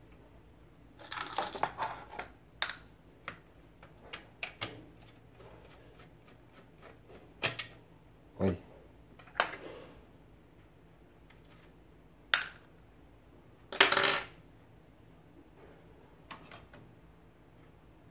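Scattered metallic clicks and clatters of a screwdriver and small screws against a satellite receiver's sheet-metal chassis as its power-supply board is unscrewed and lifted out. The loudest clatter comes about 14 seconds in.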